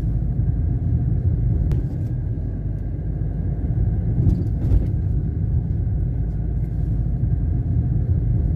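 A steady low rumble with a few faint clicks.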